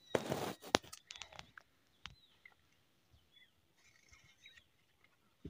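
A small plastic packet crinkling as it is handled and then torn open with the teeth. It is loudest and with a few sharp clicks in the first second and a half, and softer around four seconds in. A few faint bird chirps.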